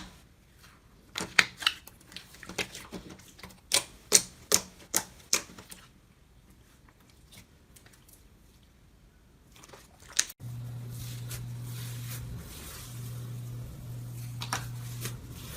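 Slime being pressed and poked, giving a quick run of sharp clicks and pops, then a few seconds of near quiet. About ten seconds in the sound changes suddenly to a steady low hum with faint crackling and one louder click.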